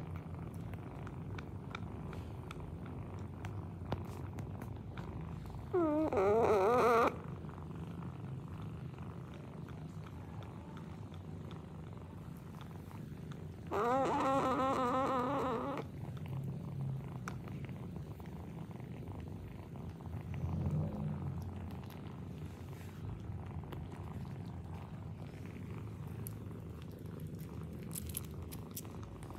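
Cat purring steadily during nursing. Two short, wavering, trilling animal calls break in: about six seconds in and, longer and louder, about fourteen seconds in.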